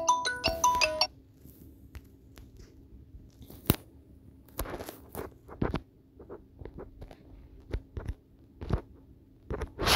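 Marimba-like ringtone of a Samsung Galaxy XCover 4s incoming call, cutting off about a second in as the call screen closes. Then scattered light taps and clicks of the phone being handled, the loudest near the end.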